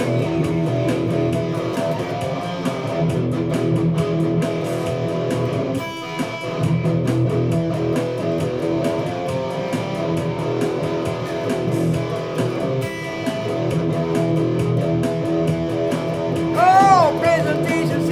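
Electric guitar strumming chords over a Beat-Buddy drum machine's steady beat, an instrumental stretch between verses of a rock song. Near the end, a few short notes bend up and down in pitch.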